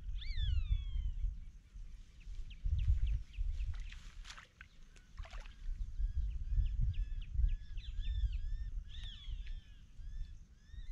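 Wind rumbling on the microphone in open marshland, with birds calling over it: a falling whistled call at the start and a run of short, repeated chirps from about six seconds on. Two brief swishes come about four and five seconds in.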